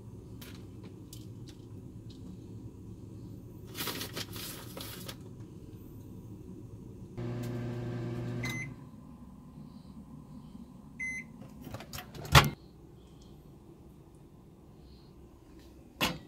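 Microwave oven running with a low hum for about a second and a half, ending in a beep; a short double beep follows a couple of seconds later. A clatter comes about four seconds in, a loud clunk about twelve seconds in, and another clunk near the end.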